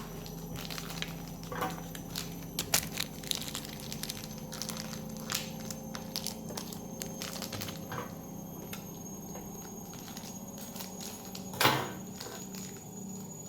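Plastic blind-bag toy packaging crinkling and tearing as it is opened by hand, with scattered crackles and a louder one near the end.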